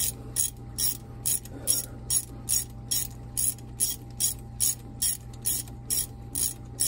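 Hand ratchet wrench worked back and forth in quick, even strokes, about three clicking bursts a second, as bolts are run down.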